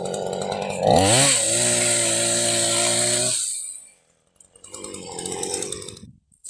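A small engine revving up sharply about a second in and holding high revs for a couple of seconds, then dropping away. It runs again more briefly near the end.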